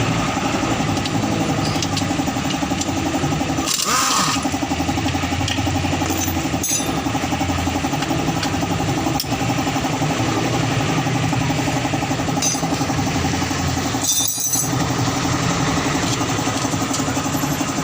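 A small motorcycle engine idling steadily, with a rapid even pulse, and a few light metal clinks over it.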